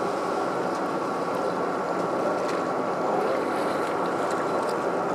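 Steady drone of a boat's engine and hull, an unchanging rushing hum with a constant higher whine.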